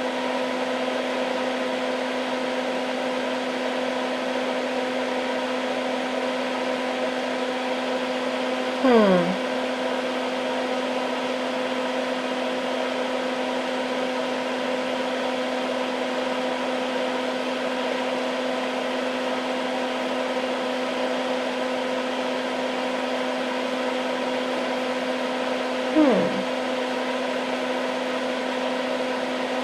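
Steady hum of a Hakko soldering smoke absorber's fan, with a few fixed tones in it. Twice, about nine seconds in and again near the end, a short louder sound slides down in pitch.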